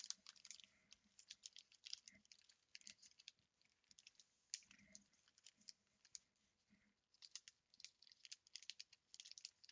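Walmart-brand zip-top plastic storage bag being pressed shut along its zipper seal: faint, irregular clicks and crinkles of the plastic, quieter for a stretch in the middle.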